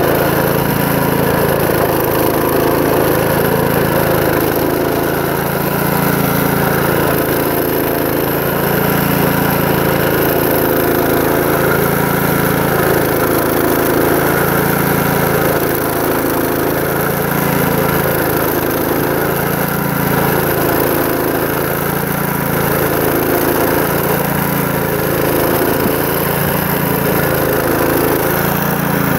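Petrol-engined rail cutting saw running at high speed with its disc grinding through a steel rail. The sound swells and eases about every two seconds as the disc is worked through the cut.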